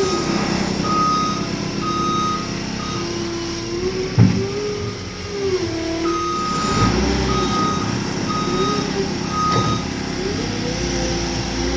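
Heavy construction machine's backup alarm beeping about once a second, pausing for a few seconds midway, over a diesel engine that revs up and down repeatedly as the machine works. A single heavy thump about four seconds in.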